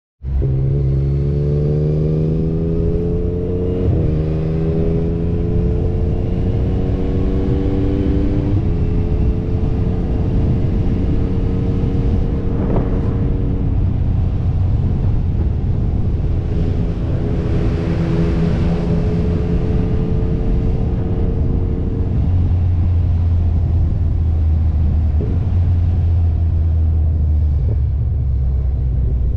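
Motorcycle engine pulling through the gears: its pitch climbs and drops back at upshifts about four and eight seconds in, then holds steady at cruising speed. A heavy low rumble of wind on the microphone runs under it.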